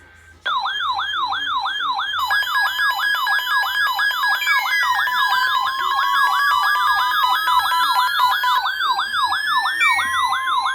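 Electronic siren-style alert sound that starts abruptly: a fast yelp sweeping up and down about three times a second, joined about two seconds in by steady high beeping tones. A slow rising tone climbs underneath from the middle to the end.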